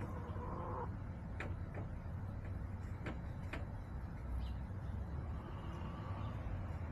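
Backyard hens vocalizing: one drawn-out call lasting just under a second at the start and a fainter call near the end, with a few sharp taps in between, over a steady low rumble.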